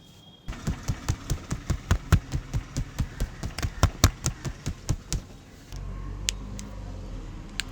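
Percussive massage tapping: hands striking the body in a fast, even series of sharp slaps, about five a second, stopping about five seconds in. Then a steady low rumble with two single clicks.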